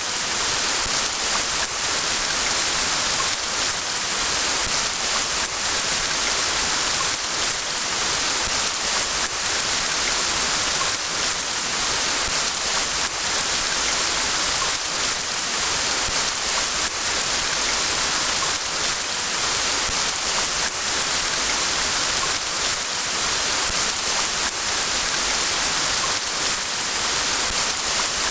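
Steady rain: an even hiss with a scattered patter of drops.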